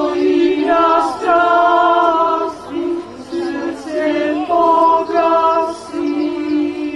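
Women's choir singing a cappella in sustained phrases with short breaks, closing on a long held note near the end.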